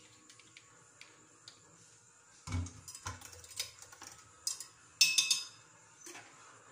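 Kitchenware being handled at a sink: a plastic blender jar, its lid and a bowl knocking and clinking. There is a dull thump about two and a half seconds in, a run of small clicks, and a louder clatter about five seconds in.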